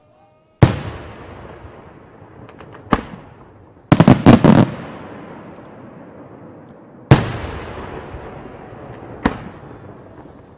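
Aerial firework shells bursting overhead. A loud bang comes just under a second in and a smaller one about two seconds later. A quick cluster of five or six bangs comes around four seconds, then another loud bang about seven seconds in and a smaller one near the end, each followed by a long fading echo.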